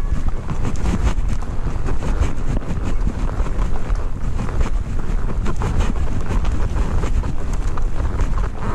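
Wind buffeting the microphone: a loud, continuous rumble with rapid gusty flutter.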